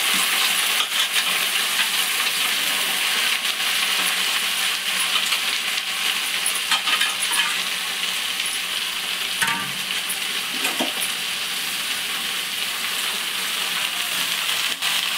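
Freshly washed, wet chirraku leaves sizzling steadily in hot oil in a metal pan as they are stirred, with scattered metallic clinks.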